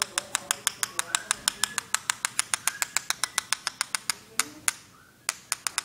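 One paintbrush rapped fast against the handle of another, about seven sharp clicks a second, flicking ink splatter off the loaded brush onto the paper. The tapping stops a little after four seconds in, then three more taps come near the end.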